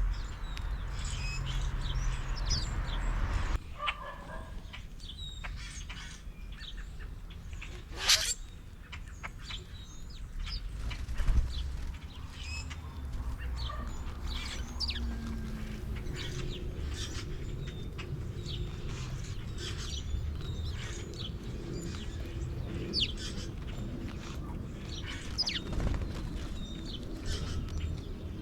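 Birds chirping, with many short high calls scattered throughout. A low rumble underneath stops about three and a half seconds in, and there is one sharp click about eight seconds in.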